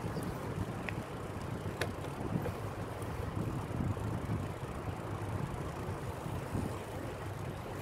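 Wind buffeting a phone's microphone while riding a bicycle downhill on a paved bike path: a steady low rumble, with one sharp click just under two seconds in.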